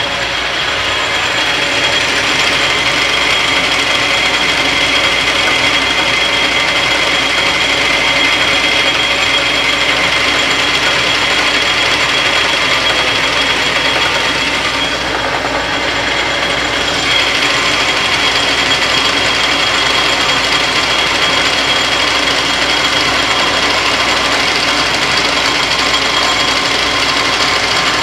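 Metal lathe turning a hard metal workpiece between centers, an insert tool taking a cut: a steady cutting hiss with a high whine. The whine drops out for about two seconds near the middle, then resumes.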